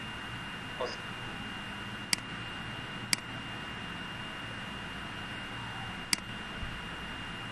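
Three sharp single clicks of a computer mouse, about a second apart and then three seconds later, over a steady hiss with a faint high-pitched whine.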